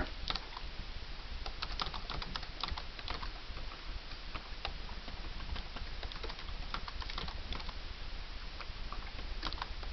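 Typing on a computer keyboard: a run of quick, irregular keystroke clicks, with a low steady hum underneath.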